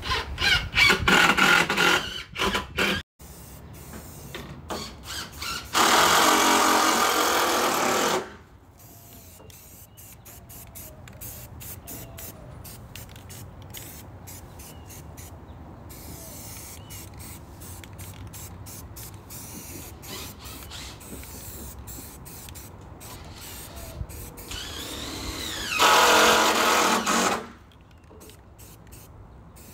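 A cordless drill driving screws into cedar fence pickets in short bursts for about three seconds, cut off sharply. Then an aerosol spray-paint can hissing in two bursts of about two seconds each, about six seconds in and near the end, coating iron strap hinges black.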